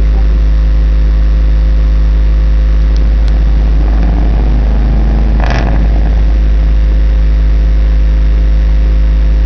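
Two Alpine Type R subwoofers on an Alpine 500M amplifier playing a sustained, very loud deep bass tone with a steady stack of overtones during an SPL competition run. A short crackle comes about five and a half seconds in.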